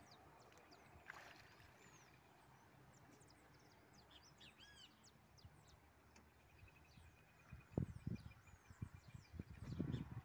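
Birds chirping over a quiet pond-side background. In the last few seconds come low splashes and thumps as a hooked fish thrashes at the water's surface.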